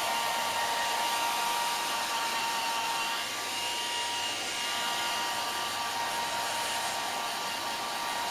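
Handheld hair dryer running steadily: a rushing blast of air with a high motor whine.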